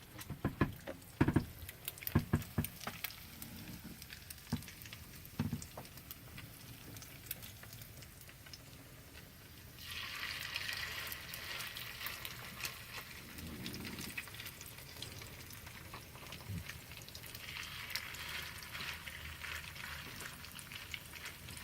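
Crab cakes sizzling and crackling in hot olive oil in a frying pan, with several sharp knocks of a utensil against the pan in the first few seconds. A louder hiss comes in about ten seconds in and again near the end.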